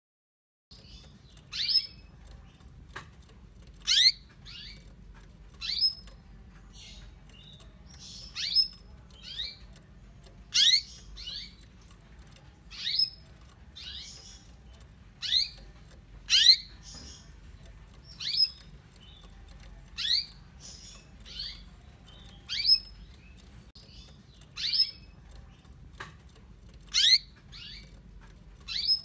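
Female canary in breeding condition giving short rising call chirps, a loud one about every two seconds with fainter chirps in between: the hen's call to a male.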